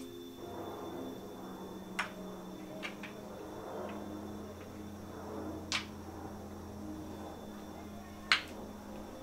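Wooden kendama clacking: a few sharp, separate clicks as the ball is caught on the cup and spike, the loudest near the end.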